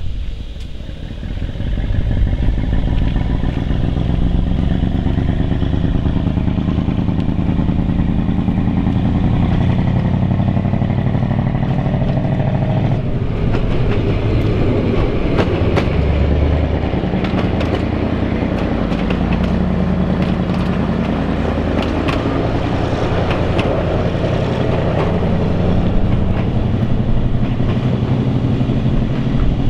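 Two-car diesel railcar set running past, its diesel engines giving a steady low drone that swells about two seconds in as it pulls away. From the middle on, its wheels click and clatter over rail joints and points.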